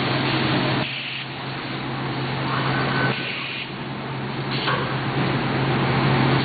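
Steady machinery noise with a constant low hum from a Biesse Skipper 100 CNC panel machine and its belt conveyor running. The noise drops briefly about a second in and again around three seconds in.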